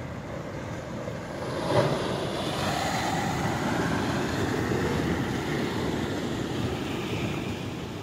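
Muddy flash-flood debris flow rushing down a ravine: a steady, dense rushing noise that swells about a second and a half in and stays strong. There is one short sharp knock just under two seconds in.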